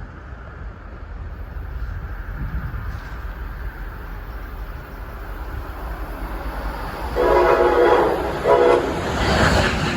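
Passenger train horn sounding two blasts about seven seconds in, a long one of nearly a second and then a short one, over a low rumble. A rushing noise swells right after as the train nears.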